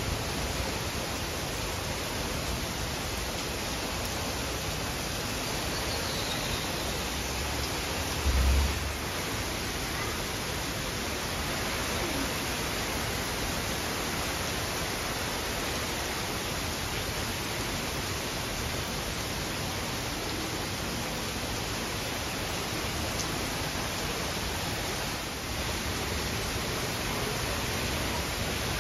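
Heavy rain pouring down steadily: a dense, even hiss. A brief low thump comes about eight seconds in.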